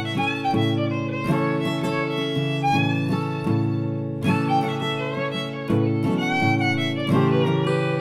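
Fiddle music: an improvised tune, its notes changing every half second or so.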